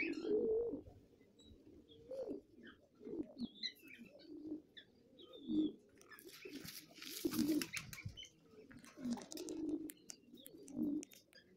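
Pigeons cooing, with low coos repeating every second or two, and faint higher chirps between them. A short burst of noise comes about seven seconds in.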